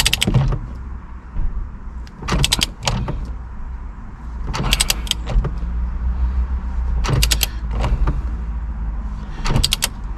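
Ratcheting torque wrench tightening a steering wheel's centre bolt: short bursts of rapid ratchet clicks about every two and a half seconds, five in all, as the handle is swung back between pulls.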